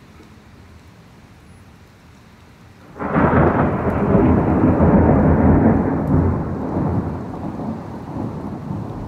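A sudden loud crack of thunder about three seconds in, rolling on as a rumble for several seconds and slowly fading, from lightning striking close by. Steady rain hisses throughout.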